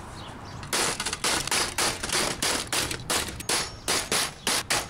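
Hammer striking an aluminium TV panel to knock out its steel screw posts: a quick series of hammer blows, about four a second, starting just under a second in.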